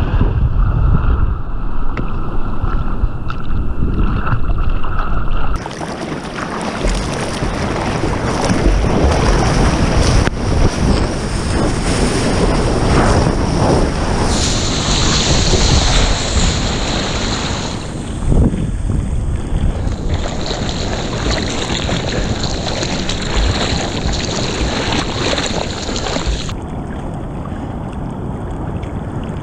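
Ocean surf rushing and splashing around a camera at water level, with wind buffeting the microphone. The rush changes character abruptly several times as the camera passes through whitewater and spray.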